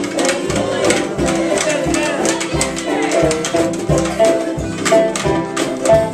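Acoustic string band of guitars, mandolins, ukulele and upright bass playing a lively folk-gospel tune, with a steady percussive beat.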